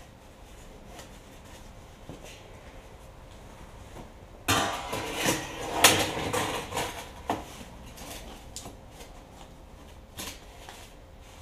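Hard objects clattering and scraping against the steel barrel and firebrick lining for about three seconds, a burst of rapid knocks loudest about halfway through, followed by a couple of single knocks.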